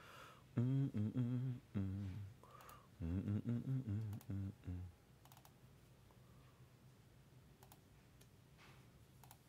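A low, wordless murmured voice for the first half, then a few sparse, faint computer keyboard clicks.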